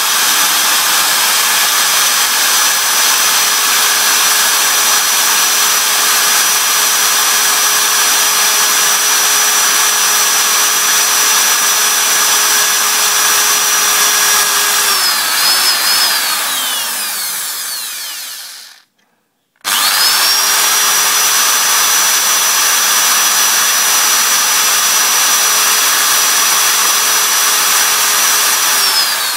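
Electric drill running at a steady speed as a thin bit bores lengthwise into the end of a wooden stick. It winds down after about fifteen seconds, stops briefly, then spins up again and runs steadily before winding down at the end.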